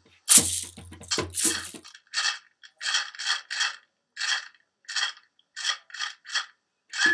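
Rhythmic shaking or scraping strokes, like a hand-held shaker or other small percussion, heard through a video call's audio. A few loud strokes come first, then short bursts about three a second in a loose beat.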